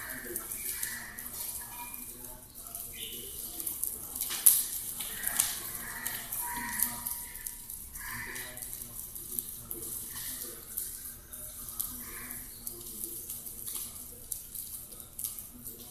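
Homa fire burning in a brick fire pit, crackling with frequent sharp pops; the loudest pop comes about four and a half seconds in.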